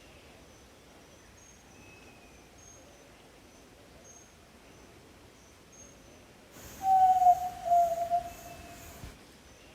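Yellow-legged tinamou (jaó-do-sul) giving one low whistled call about six and a half seconds in, a note that swells twice and falls slightly in pitch over about two and a half seconds. Faint high chirps sound at intervals in the background.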